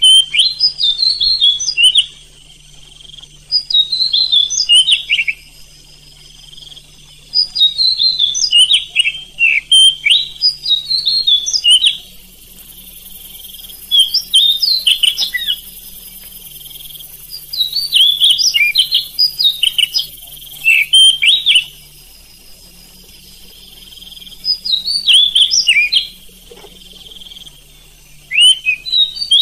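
Oriental magpie-robin (kacer) singing in bursts of quick, varied whistled phrases with rising and falling notes, separated by short pauses of a second or two.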